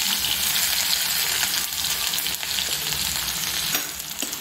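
Freshly added chopped onions and green chillies sizzling in hot oil in a frying pan: a steady frying hiss, with a few sharp clicks about four seconds in.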